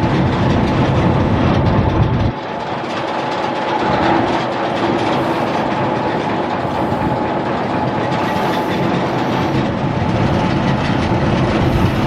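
Natural gas engine driving an oil-well pumpjack, running steadily with continuous mechanical noise and a faint steady tone; the deepest rumble drops away about two seconds in.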